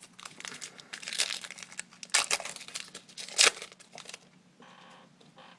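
Wrapper of a baseball card pack being torn open and crinkled by hand, a run of crackling bursts with the loudest about three and a half seconds in.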